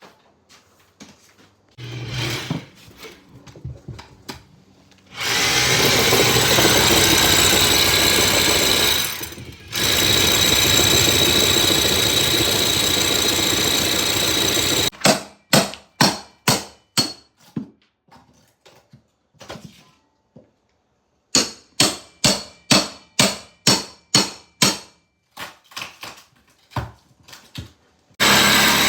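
Electric drill boring a hole through wood framing, running in two long steady stretches and then in short repeated bursts of about three a second, with another steady run starting near the end.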